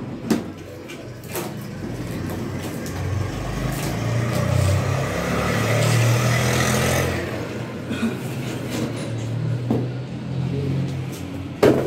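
Cardboard shipping box being cut open and handled, with sharp knocks just after the start, about a second later and twice near the end. Under it a low engine-like rumble swells to its loudest in the middle.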